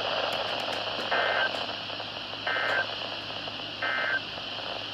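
NOAA Weather Radio receiver playing the SAME end-of-message code: three short bursts of digital data tones about a second apart, over steady radio hiss. The bursts mark the end of the Required Weekly Test broadcast.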